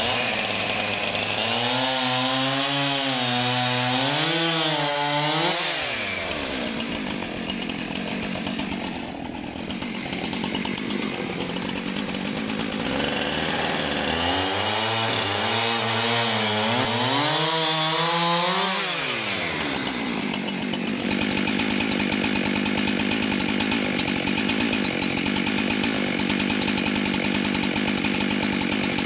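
Husqvarna 372XP two-stroke chainsaw with a 24-inch bar cutting through logs at full throttle. Twice its note drops lower and wavers as the engine labours in the cut.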